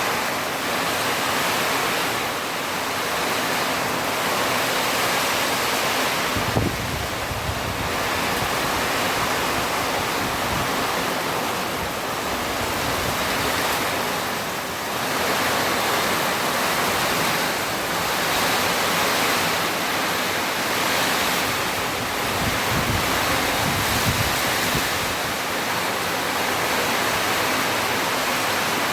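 Heavy rain falling: a loud, steady hiss that swells and eases slightly, with two brief low rumbles of wind on the microphone, about seven seconds in and again near twenty-three seconds.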